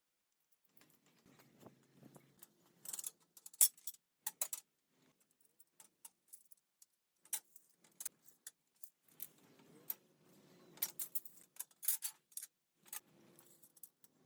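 Irregular light metallic clicks and clinks, like small metal parts or tools being handled, in uneven clusters with short pauses between them.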